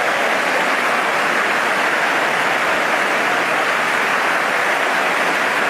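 Audience applauding steadily, a dense crowd of clapping hands after an applause line in a speech.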